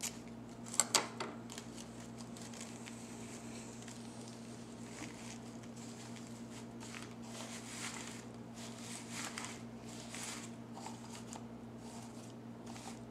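Scissors snipping twice about a second in, then soft rustling as artificial rose petals are handled and arranged, over a low steady hum.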